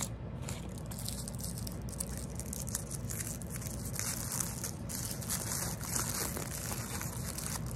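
Small toy-packet wrapper crinkling and crackling steadily as fingers work it open.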